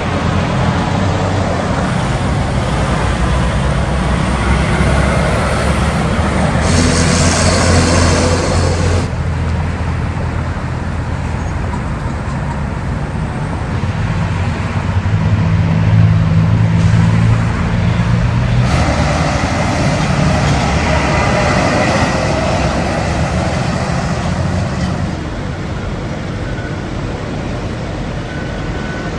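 Road traffic: diesel semi trucks and cars driving by, with a continuous low engine rumble. There is a louder pass about seven to nine seconds in, and a steady truck engine drone from about fourteen to eighteen seconds in.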